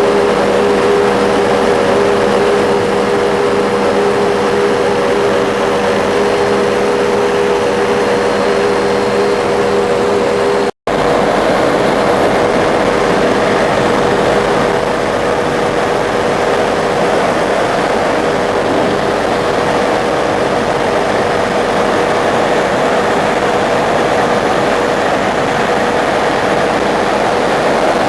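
Helicopter engine and rotor noise heard on board: a loud, steady drone with a constant hum, broken by a split-second gap about eleven seconds in.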